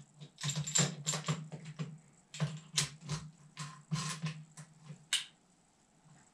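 Rapid clicks and knocks of an airsoft rifle and an ACOG-style scope being handled and fitted together, the scope mount seating on the rifle's rail. The clicks stop about five seconds in.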